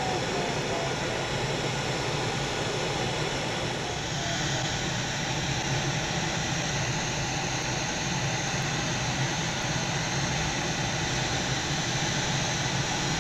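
Steady rush of air around and into the cockpit of a Duo Discus glider in gliding flight, with no engine. About four seconds in the noise steps up and gets hissier, as the glider flies faster.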